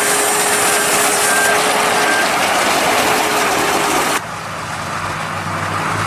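Deutz-Fahr Agrotron M420 tractor and Fixmaster 335 round baler-wrapper running at work, a dense steady machinery noise with a thin steady whine. About four seconds in it drops suddenly and goes on quieter and more distant, the tractor's engine hum now more prominent.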